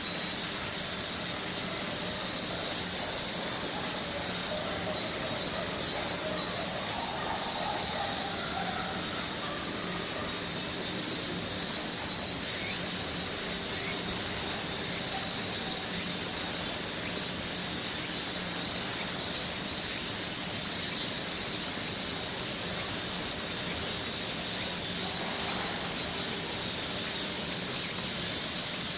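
Summer cicada chorus making a steady, high-pitched drone that never lets up, with a faint steady low hum beneath.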